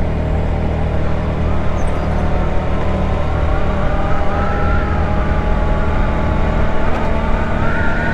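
Ice Bear Hawkeye 150cc GY6 scooter's single-cylinder four-stroke engine running steadily while riding, with a higher whine that rises slightly about four seconds in and again near the end.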